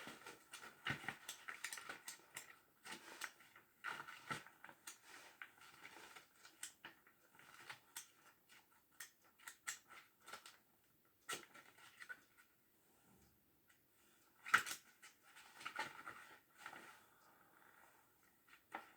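Faint, scattered clicks and light knocks of small objects being handled, with one sharper knock about three-quarters of the way through.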